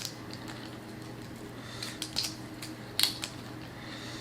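Close-miked eating of a boiled shrimp: a few sharp clicks and crackles about two and three seconds in, over a faint steady hum.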